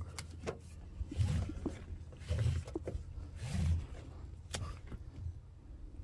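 Nylon ratchet-strap webbing being pulled out of the spindle of an opened ratchet buckle, with a few light clicks and rattles from the metal ratchet mechanism and soft low handling noise.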